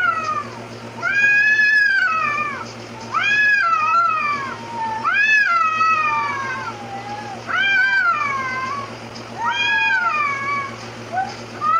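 Cats yowling at each other in a fight stand-off: long drawn-out threat yowls that rise and fall in pitch, one about every two seconds.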